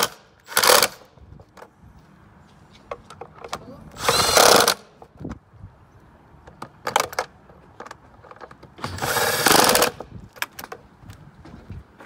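Cordless drill/driver driving the screws of a car's air filter housing cover, in three short runs of about a second or less each, with small clicks in between.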